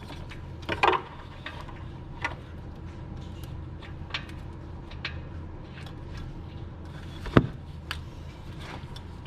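Scattered clicks and light knocks of hand tools as a new oxygen sensor is threaded back into place, with one sharper knock about seven seconds in, over a steady low hum.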